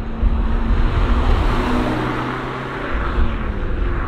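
Fiat Abarth 500 esseesse with its 1.4-litre turbocharged four-cylinder driving past: the engine note and tyre noise swell to a peak about two seconds in, then fade as the car draws away.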